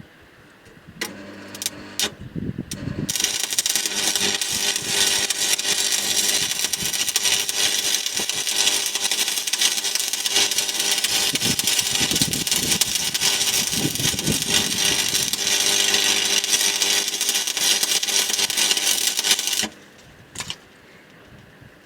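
Stick (arc) welding with an electrode in a holder. A few short crackling strikes come about a second in as the arc is struck. Then the arc crackles continuously for about sixteen seconds over a steady hum, and stops suddenly near the end.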